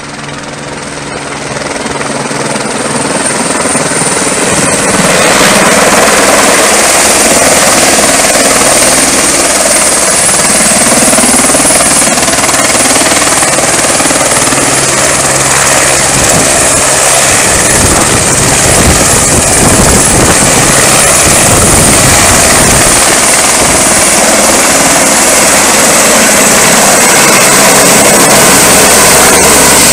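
Firefighting helicopter coming down and hovering low over water to fill its slung bucket: rotor noise with a high steady whine. It grows louder over the first five seconds as it descends, then holds loud and steady.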